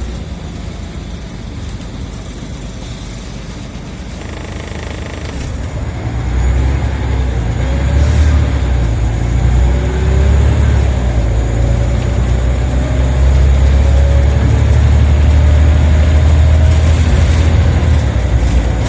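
Scania OmniCity single-deck bus heard from inside, its engine and drivetrain droning low. About six seconds in the drone grows clearly louder and stays up, with a faint rising whine above it, as the bus gathers speed.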